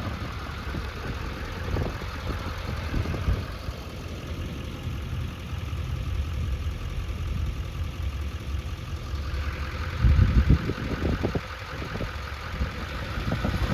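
Vehicle engine idling with a steady low rumble, which swells louder for about a second some ten seconds in.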